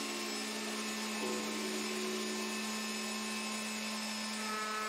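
Festool router mounted upside down in a router table, running at speed with a steady whine.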